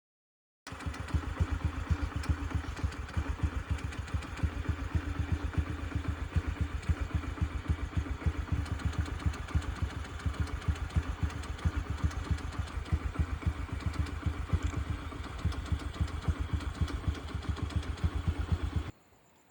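An engine idling steadily with a fast, even chugging. It cuts in abruptly just under a second in and cuts off near the end.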